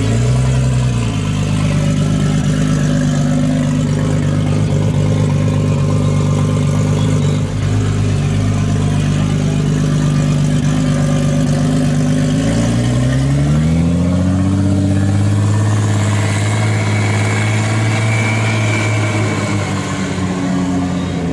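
A car engine running at a steady idle. About two-thirds of the way through, its revs rise and are held steady at the higher pitch, easing off slightly near the end.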